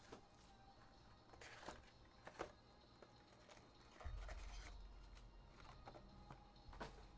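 Faint rustling and light clicks of cardboard trading-card boxes and packs being handled, with a low hum coming in about halfway through.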